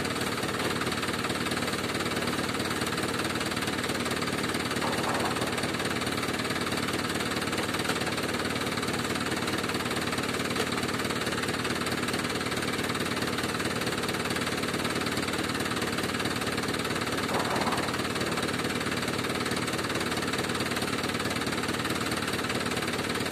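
A tractor's engine idling steadily with a rough, even knock.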